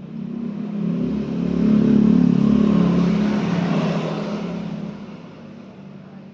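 Stick-welding arc burning: a steady hiss over a low electrical hum, swelling over the first two seconds and fading away near the end.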